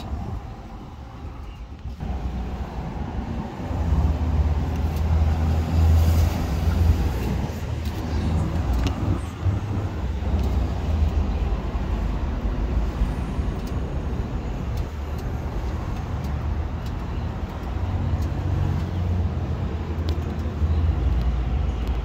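Steady low rumble of a running motor vehicle, growing louder about two seconds in and again near four seconds, then holding.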